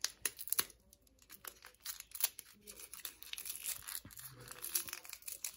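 Foil wrapper on a small surprise toy crinkling and tearing as fingers pick at it, in many short, irregular crackles.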